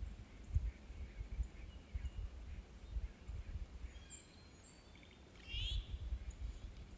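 Quiet winter forest ambience: uneven low rumbling on the microphone, with a few faint bird chirps and calls about four to six seconds in.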